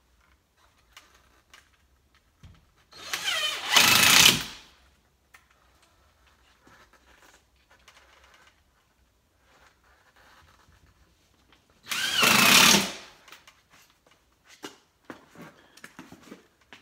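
Power drill driving screws into a ceiling drywall sheet: two short runs of about a second and a half each, one a few seconds in and one near the end, with faint knocks and handling in between.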